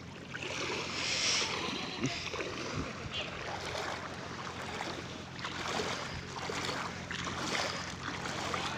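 Muddy floodwater rushing and churning, a steady rushing noise with a few small splashes.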